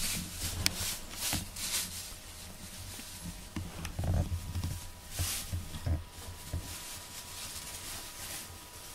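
Close handling noise of a cat's fur and face brushing against the camera: soft rustles, a few short hissy brushes and dull bumps, heaviest about four to six seconds in.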